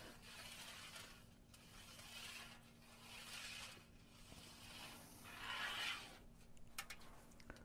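Paintbrush handle drawn through carrageenan marbling size, scraping faintly along the bottom of a metal baking sheet. It makes about five soft scraping strokes, roughly one a second, and the one about six seconds in is the loudest.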